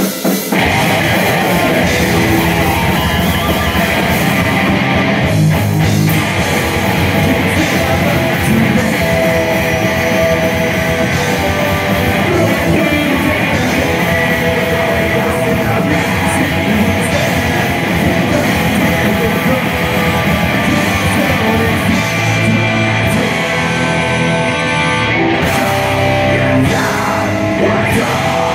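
Live rock band playing at full volume: distorted electric guitars, bass guitar and a drum kit, with a vocalist singing into a microphone.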